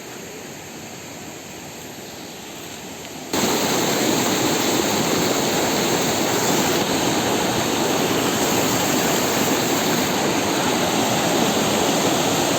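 Steady rush of flowing river water, jumping much louder about three seconds in and then holding steady.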